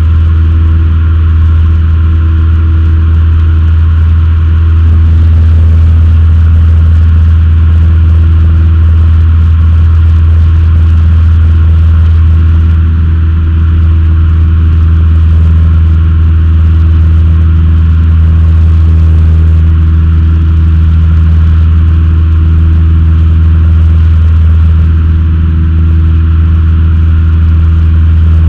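Cessna 152's four-cylinder Lycoming O-235 engine and propeller running steadily in flight, heard from inside the cockpit as a loud, even, low drone.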